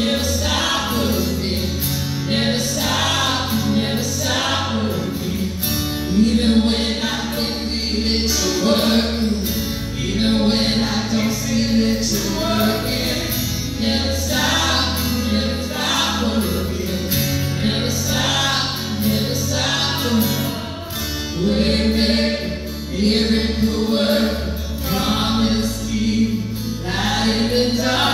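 Live worship band playing a song: women singing lead over keyboard and guitar, with sustained low notes underneath.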